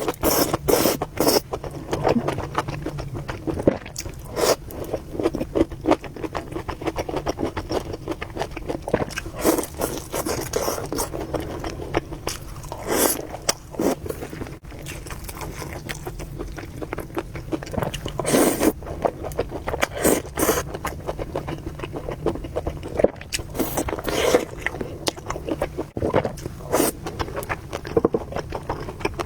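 A person eating spicy noodle soup close to the microphone: irregular chewing and slurping noises mixed with utensils scraping and clicking against the bowl.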